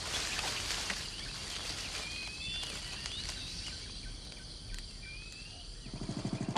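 Forest ambience: a steady high-pitched insect drone, with a few short bird chirps about two to three seconds in and again near five seconds. A low pulsing rumble starts in the last half second.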